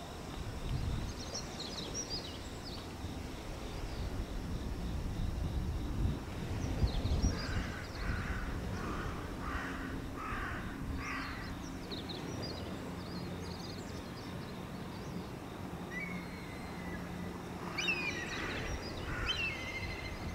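A crow caws four times in a row midway, the caws under a second apart, over a steady low rumble of harbour ambience. Thin high-pitched bird chirps come near the start and again near the end.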